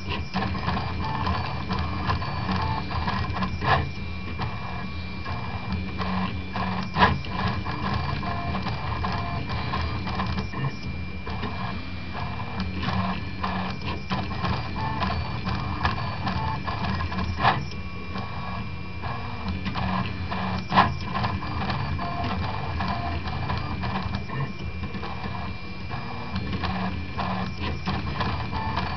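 Prusa Mendel 2–style RepRap 3D printer running a print, its stepper motors buzzing and whirring as the axes move, with a steady high whine and occasional sharp clicks.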